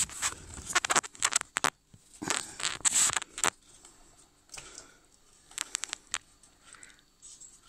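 Irregular clusters of short scratchy clicks and rattles from close handling, densest in the first three and a half seconds, with a few shorter clusters later.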